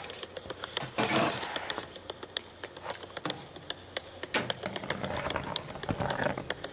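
A serving spoon clinking and scraping in a glass serving bowl of boiled corned beef and vegetables: a run of small clicks, a short scrape about a second in, and a heavier knock just after four seconds.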